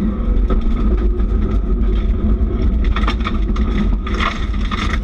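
Subaru rally car's engine running at speed, heard from inside the cabin, with short clicks and rattles of gravel against the car, thickest near the end.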